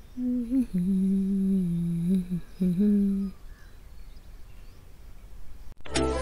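A woman humming a few held notes, a higher one sliding down to a longer low note, then a short final note. Near the end, background music cuts in abruptly.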